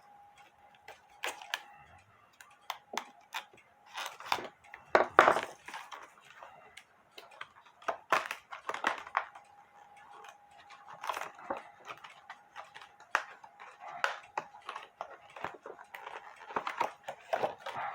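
A plastic package of craft beads being handled and opened, crinkling and crackling with scattered sharp clicks, loudest about five seconds in.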